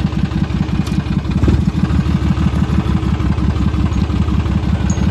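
A motor vehicle engine idling with a steady, even pulsing beat.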